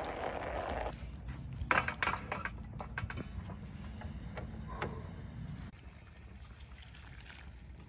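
Water pouring from a plastic water jug's spigot into a steel camping pot, for about the first second. A few sharp clicks and knocks follow about two seconds in.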